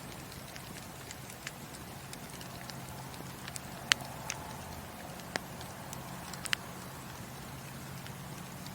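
Burning wood fire in a fireplace: steady low rumble and hiss of the flames with irregular sharp crackles and pops, the loudest pop about four seconds in.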